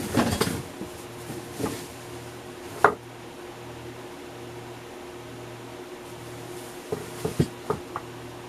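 Indoor handling noises: a brief clatter at the start, one sharp knock about three seconds in, and a run of light clicks and knocks near the end, over a steady low hum.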